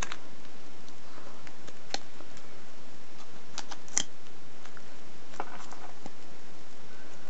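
Thin gold foil chocolate-coin wrapper crinkling in the fingers as it is bent and pressed around a foil stem: scattered sharp crackles, the loudest about four seconds in, over a steady hiss.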